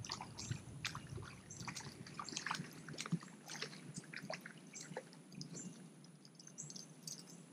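Faint water splashing from a hooked freshwater drum being reeled in, with scattered light clicks and rustles of the fishing tackle and bankside grass.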